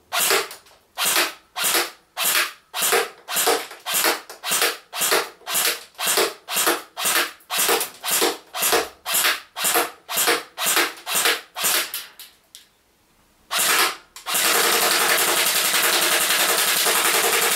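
Echo1 GAT airsoft electric gun (AEG) firing single semi-auto shots at a steady pace of about two a second. After a short pause and one more shot, it fires a long full-auto burst near the end.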